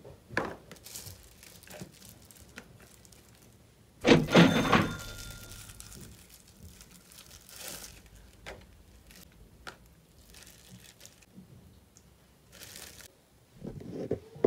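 Plastic bags crinkling and a plastic food-storage container being handled as tofu is unpacked into it, with scattered small clicks and knocks. A louder knock and rustle comes about four seconds in.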